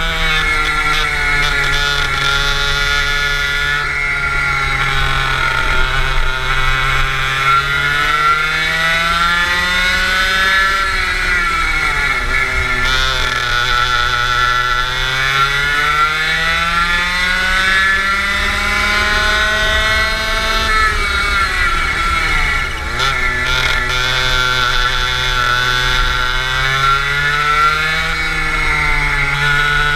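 Go-kart engine heard onboard under hard driving. Its pitch climbs steadily as it accelerates, then drops quickly twice as it slows for corners, about a third and two thirds of the way through, before climbing again.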